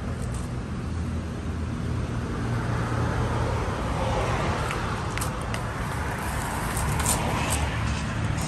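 Road traffic going past, a vehicle swelling up and fading away over the middle few seconds, over a steady low hum, with a few light clicks.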